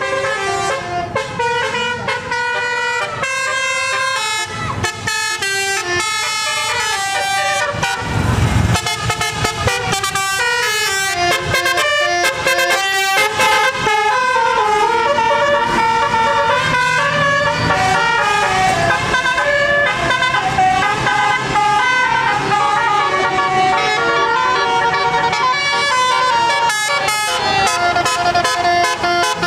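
Bus telolet basuri horn playing a tune: a continuous run of quick stepped horn notes rising and falling. A brief low rumbling burst comes about eight seconds in.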